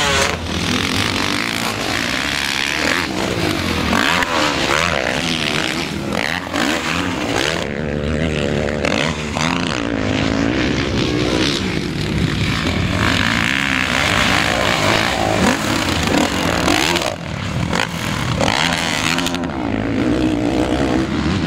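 Motocross bike engines revving and running, their pitch rising and falling over and over.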